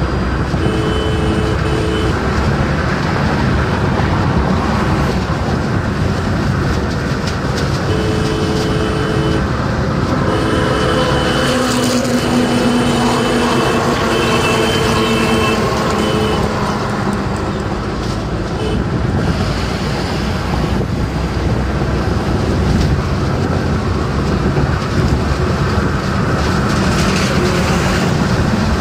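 Steady road, wind and engine noise inside a car cabin at high highway speed. A held tone at more than one pitch sounds in stretches over it: about a second in, around eight seconds, and again for several seconds in the middle.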